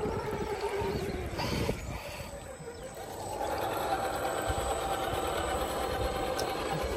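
Electric motor and geartrain of a 1/10-scale RC crawler truck whining steadily as it drives through shallow muddy water, setting in about three seconds in.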